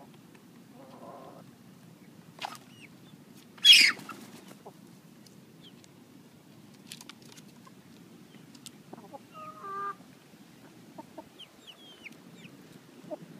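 Backyard hens clucking in short bursts, with one loud, sharp squawk about four seconds in and a few high chirps near the end.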